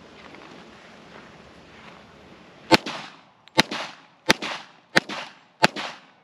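FNX-45 pistol in .45 ACP fired five times, about a shot every 0.7 seconds, starting a little before halfway through. Each shot trails off in a short echo.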